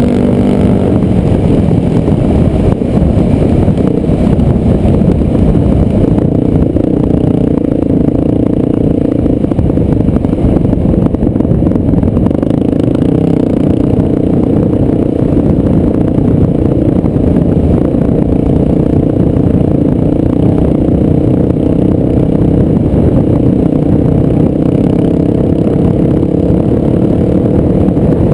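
Dirt bike engine running under steady throttle while riding a dirt trail; its note drops about a second in, then holds fairly even. Heavy wind noise and rattle sit under the engine at the camera.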